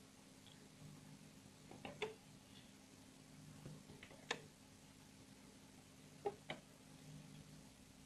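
A few soft, scattered ticks, a couple of seconds apart, from rubber bands being hooked over the pegs of a plastic rubber-band bracelet loom, over a faint steady hum.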